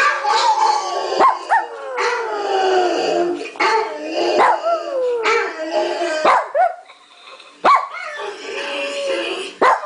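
Dogs howling, long howls that slide down in pitch broken by sharp yips and barks, with a short lull about seven seconds in.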